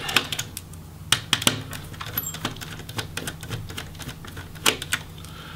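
Irregular light clicks and taps of a small screwdriver working against the plastic and metal parts inside an opened laptop's bottom case, a few of them sharper than the rest.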